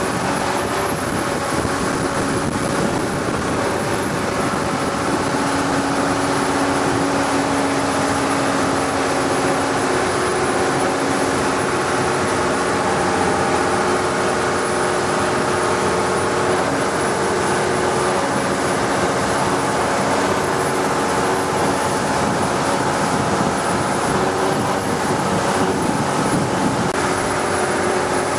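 Engine of a wooden longtail boat running steadily under way: a constant drone with a steady rushing noise over it.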